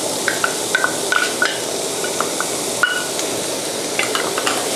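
Diced vegetables and ham sizzling in butter in a pan while being stir-fried, the spatula clinking against the pan several times with short ringing knocks.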